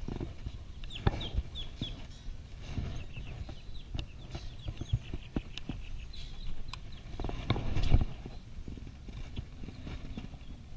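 Scattered knocks and clicks of fishing gear being handled in a small boat, with birds chirping in short runs of calls. A louder rustling thump comes about eight seconds in.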